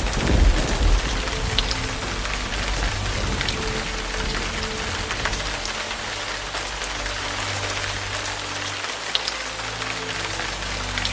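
Steady rain falling, an even hiss dotted with small drop ticks. Soft background music plays low underneath, and a low rumble fades out in the first second.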